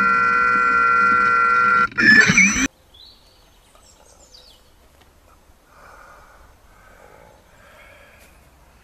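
Brushless motor of a radio-controlled zipwire camera buggy giving a steady multi-tone whine, with a brief louder warbling burst about two seconds in. It then cuts off sharply to quiet outdoor ambience with a few faint bird chirps.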